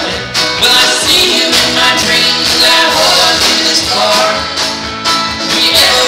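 Live country-rock band playing an instrumental break with a steady beat: drum kit, electric bass, electric guitar and banjo.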